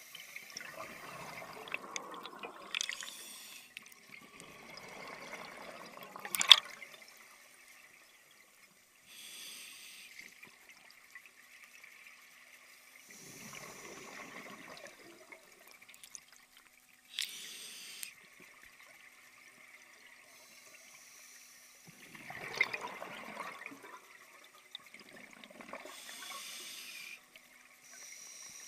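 Scuba diver breathing through a regulator underwater: bubbly gurgling exhalations a few seconds long every several seconds, with short hissing inhalations between them. A single sharp click about six seconds in is the loudest sound.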